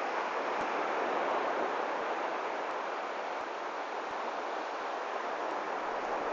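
Sea surf washing onto the beach: a steady hiss that swells slightly and eases.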